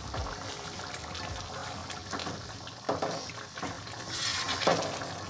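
Thick curry in a pot bubbling and simmering, a soft liquid sound with a few short louder moments.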